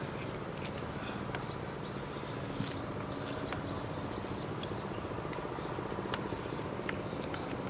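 Steady chorus of insects chirping, with a few faint scattered clicks.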